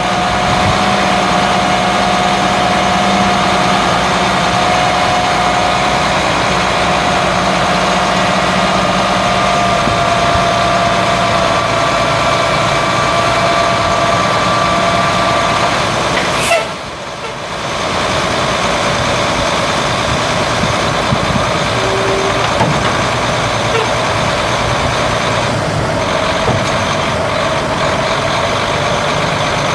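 Cummins ISC 8.3-litre inline-six turbo diesel in a Ford L8000 dump truck running with the PTO engaged, with a steady whine as the hydraulic hoist raises and lowers the steel dump bed. About halfway through comes one short sharp sound, and the sound drops briefly before the steady running resumes.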